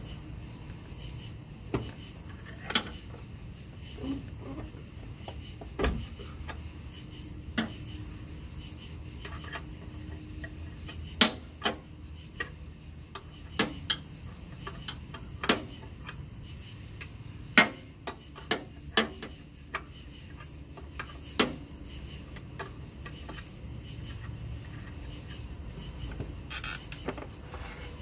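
Hand wrench working bolts on a jet boat pump's steering and reverse-bucket linkage: about twenty irregular sharp metallic clicks and clinks of steel tools and fasteners, the loudest about eleven and seventeen seconds in. A faint steady low hum runs beneath.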